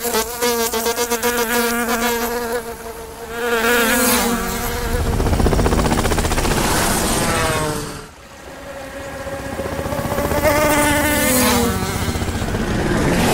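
Cartoon dragonfly wings buzzing: a wavering, pitched insect hum that bends up and down, with a deep rushing rumble in the middle as one flies close. The sound dips briefly about two-thirds of the way in, then a second buzz swells and glides down in pitch near the end.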